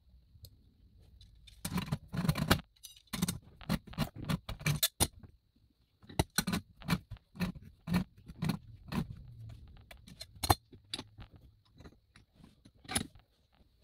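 Brass boiler drain being screwed by hand into a brass pressure-tank tee clamped in a vise: metal clicking and rattling in short clusters, then evenly spaced clinks about two a second as it turns, with one louder knock near the end.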